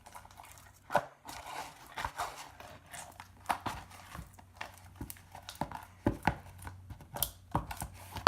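Sticky homemade slime being kneaded and pulled apart by hand, making irregular wet pops, clicks and crackles. The slime is still sticky, clinging to the hands as it comes together.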